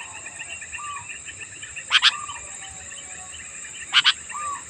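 Sooty-headed bulbuls (kutilang) calling: a stream of short chattering notes with a short whistled note repeating about once a second. Two loud, sharp double calls come about two seconds apart. A steady high-pitched buzz runs underneath.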